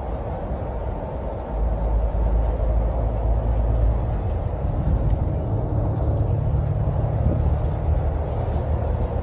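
Coach driving along a road, heard from inside the passenger cabin: a steady low rumble of engine and road noise that gets a little louder about a second and a half in.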